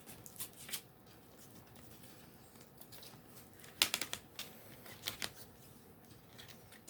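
A CD case and its paper insert being handled: scattered light clicks and rustles, with a short run of sharper clicks about four seconds in and another about five seconds in, as something is worked out of the case.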